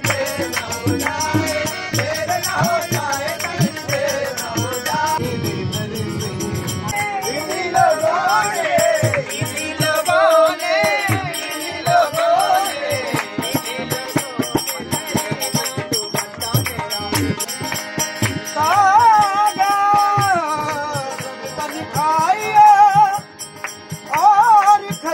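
Male singer performing a bhajan to a harmonium, with hand percussion striking along.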